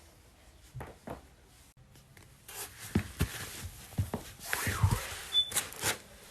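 Chiropractic adjustment: a few faint clicks, then from about halfway a quick series of sharp joint cracks over the rustle of the patient shifting on the table.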